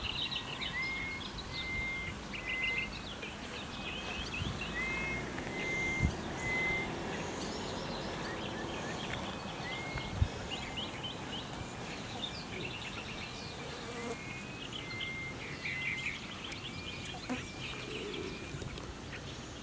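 Small birds calling: a short rising whistle repeated over and over, mixed with quick chirps and trills, over a steady background hiss. Two short knocks sound about six and ten seconds in.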